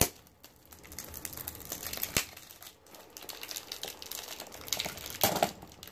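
Crinkling and scratching of a small perfume box's packaging as it is handled and worked open by hand, with a sharp tap about two seconds in and a louder rustle near the end.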